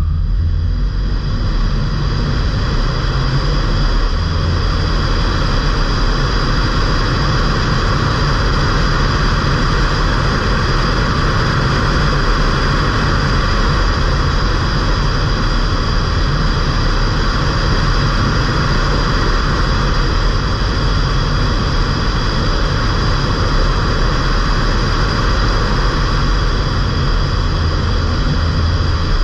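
Ford Fiesta Mk8's 1.5 TDCi four-cylinder diesel running at a steady cruise with tyre and road noise, a low drone under an even rush, and a steady high whine above it.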